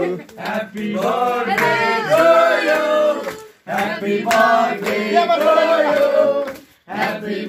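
Voices singing a melody in sustained phrases, broken by two brief pauses.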